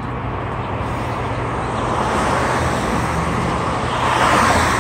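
Road traffic noise from a vehicle passing on the street: a steady rush of tyres and engine that grows louder and peaks about four seconds in, then begins to fade.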